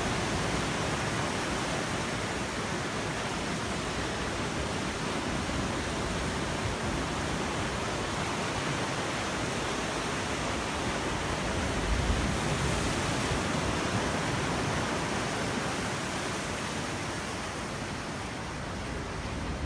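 Ocean surf breaking and washing on a beach: a steady, even rush of waves in the swell left by a passing typhoon. A brief low bump about twelve seconds in.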